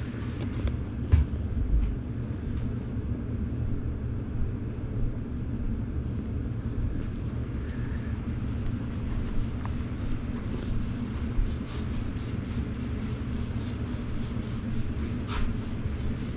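Carpet extraction machine's vacuum running steadily, drawing suction through a hose and a clear plastic extraction tool resting on wet carpet, with scattered faint ticks and crackles. A thump about a second in.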